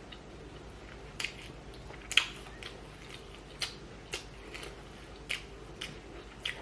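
A person eating a mukbang meal: close-up chewing and eating sounds, with about nine short sharp clicks at irregular intervals, the loudest about two seconds in.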